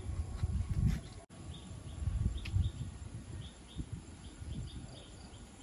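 Short high chirps from a small animal repeat about three times a second, over a low rumble of wind or handling on the microphone.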